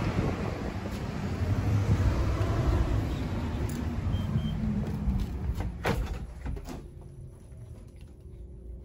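Outdoor street noise with a low rumble of road traffic. A sharp clack sounds about six seconds in, likely the shop door. After that it turns to a quieter indoor room hum with a faint steady tone.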